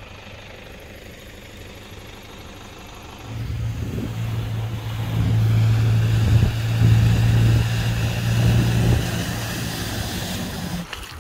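A steady low hiss, then about three seconds in a pickup truck's engine hum comes in as it drives through deep floodwater with water spraying. The hum is loudest in the middle and stops shortly before the end.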